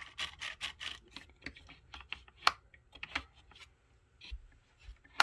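Irregular run of short hard clicks and taps from 3D-printed plastic Enigma rotor parts being handled, the sharpest about halfway through.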